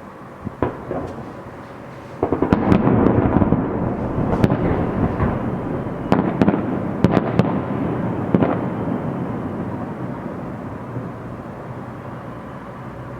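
Fireworks display: a single bang, then about two seconds in a dense volley of shell bursts with booms and several sharp cracks, the rumble slowly dying away over the last few seconds.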